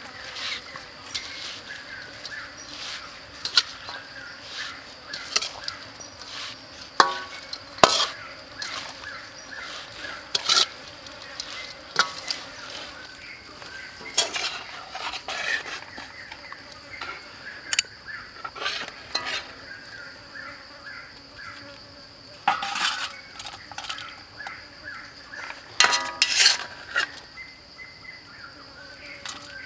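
Metal spoon clinking and scraping against a steel wok and a stainless steel tray as a salad is tossed and served, in irregular knocks. A steady high insect drone sounds behind it.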